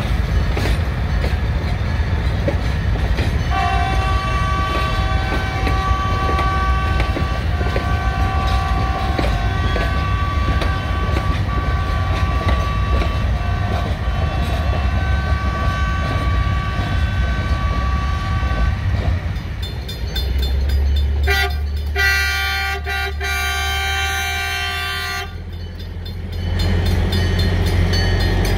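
Heritage train cars rolling past with a steady rumble and wheel clicks, while a held multi-note whistle sounds for much of that time. Then a diesel switcher locomotive rumbles up to a grade crossing and blows its horn for about four seconds.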